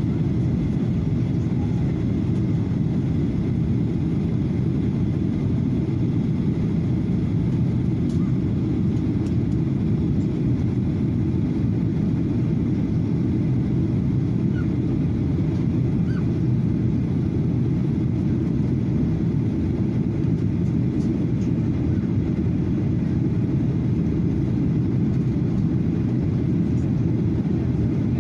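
Steady low rumble of a Boeing 737-800's engines and airflow, heard from a window seat inside the cabin in flight.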